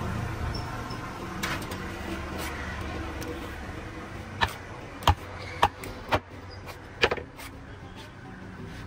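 About five sharp knocks of heavy knife blows chopping fish on a wooden table, coming one at a time in the middle of the stretch. A low engine hum fades away during the first few seconds.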